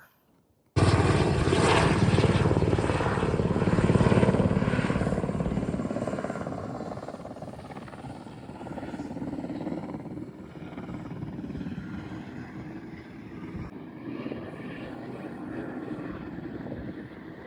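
Aircraft flying overhead, a dense engine and rotor noise that starts suddenly, peaks a few seconds in and then fades away as it moves off.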